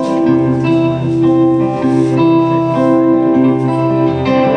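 A guitar played live through a PA, with sustained notes changing over a held low note and no singing.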